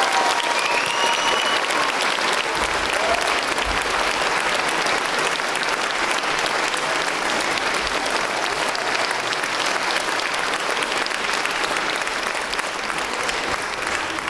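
Theatre audience applauding with dense, steady clapping. There is a short high call from the crowd about a second in.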